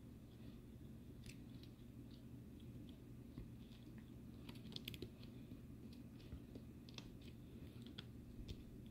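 Faint handling noises: light clicks and rustles as a paper instruction sheet is held up and moved about, with a small cluster of clicks about five seconds in.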